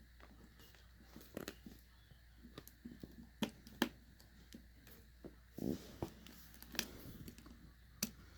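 Faint scattered clicks and ticks, with a brief scratchy rustle a little past halfway: hands and a small screwdriver handling a smartphone and its tiny screws during reassembly.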